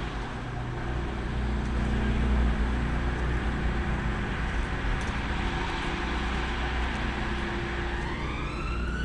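Steady low rumble of motor traffic. Near the end a siren starts up, its wail rising in pitch.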